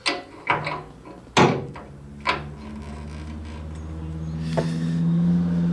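Metal clanks and knocks from a hinged fold-down part of a steel workbench being swung up and set in place, about six in all, the loudest about a second and a half in. A steady low hum runs beneath and grows louder near the end.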